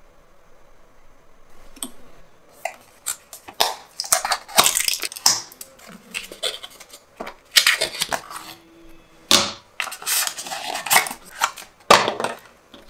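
Small paperboard charger box being opened and handled: its card flaps and inserts crackle, rustle and scrape in irregular bursts, starting about a second and a half in.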